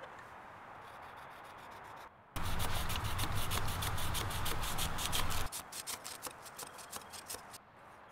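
A large knife blade sawing back and forth through a thick rope. A fast, loud run of rasping strokes starts about two seconds in and lasts about three seconds, then lighter, more spaced strokes follow.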